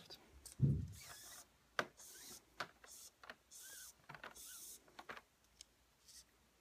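Cord being drawn through a pineapple knot on a mandrel: several short swishing rubs of cord sliding against cord, with scattered light clicks of handling. A soft low thump comes just after the start.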